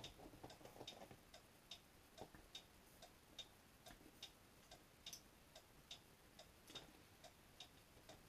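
Faint, steady ticking of a clock, about two to three ticks a second. In the first second there is a soft sip and swallow of beer from a pint glass.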